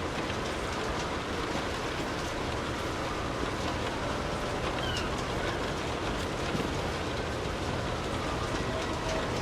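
Steady rain falling, an even hiss of drops with a low rumble beneath it.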